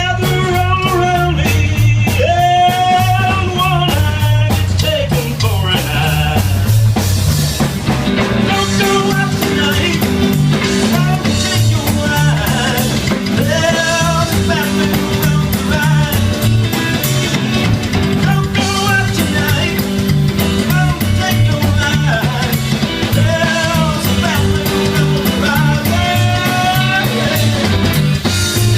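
Live rock band playing a song: a steady drum beat and bass with a singing voice and guitar over them.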